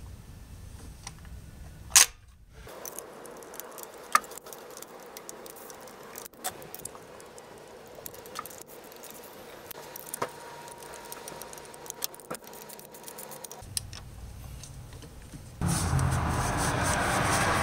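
Scattered metallic clicks and taps of hand tools and spark plug parts being handled on top of an engine, with one sharp click about two seconds in. Near the end a loud steady rushing noise comes in.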